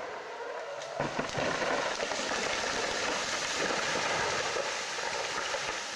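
A felled jungle tree crashing down through the canopy: a long rushing crash of leaves and breaking branches that starts suddenly about a second in and goes on for several seconds, dragging other trees down with it.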